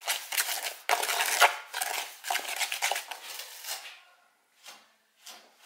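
Dry sand being scooped and poured from a plastic tub, a gritty scraping and rustling in several bursts, dying away after about four seconds to a couple of faint short sounds.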